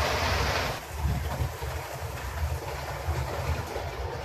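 HO-scale model train running on the layout: a rushing noise of wheels and motor that drops away suddenly under a second in, leaving a low, uneven rumble.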